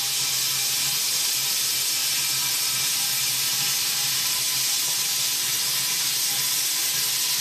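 Handheld plasma cutter running a steady arc along the seam of a steel air compressor tank: a continuous, even hiss with a faint low hum underneath.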